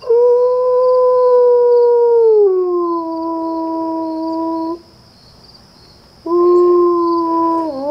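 Adult male wolf howling: one long howl that holds a steady note, slides down to a lower one about two and a half seconds in, and stops near five seconds. After a short pause a second howl begins on the lower note and dips near the end.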